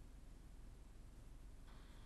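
Near silence: a faint low rumble muffled by the camera's protective case, with a faint hiss and a thin high whine coming in near the end.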